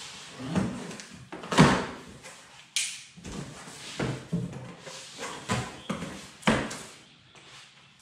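A cardboard box being opened by hand: its top flaps are worked loose and pulled open, giving an irregular run of cardboard rustles, scrapes and knocks, the loudest about one and a half seconds in.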